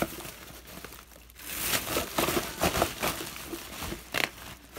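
Thin plastic bag crinkling and rustling as it is handled right against the microphone, in loud bursts about one and a half to three seconds in and briefly again near the end.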